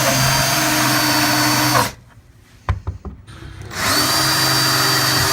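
Power drill countersinking screw holes: it runs steadily with a high whine, stops a little under two seconds in, a few clicks follow, and it spins back up near four seconds.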